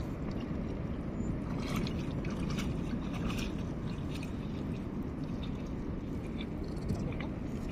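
Shallow seawater sloshing and trickling around reef rocks and seagrass. It is a steady low rush with scattered faint clicks.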